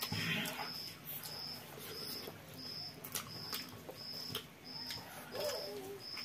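Eating with the fingers from plates of rice and curry: soft wet smacks and clicks of chewing and of fingers in the food, with a brief voiced murmur about five seconds in. Behind it, a high chirp repeats evenly about one and a half times a second.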